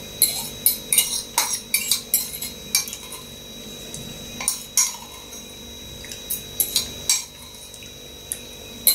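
A spoon clinking and scraping against a ceramic bowl while eating boiled potatoes from it: quick clusters of clinks in the first few seconds, then scattered ones.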